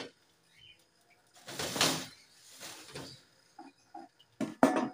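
Rustling and handling noises with a few short, soft squeaks from Chihuahua puppies, then two sharp knocks near the end, the loudest sounds here.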